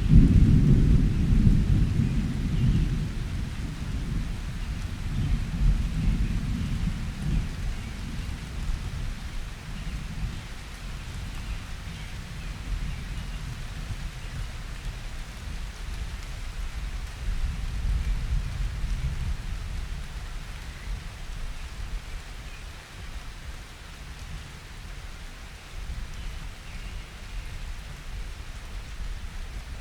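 Thunderstorm: a roll of thunder rumbling loudly at the start and slowly dying away over several seconds, with fainter rumbles swelling and fading after it. Steady rain falls throughout.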